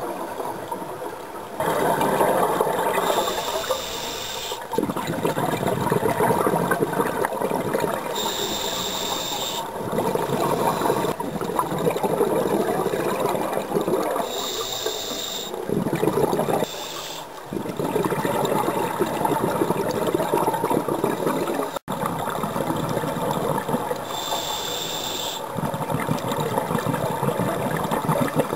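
A scuba diver breathing through a regulator underwater. Four high hissing inhales, each lasting about a second and a half, are each followed by several seconds of rumbling, crackling exhaled bubbles.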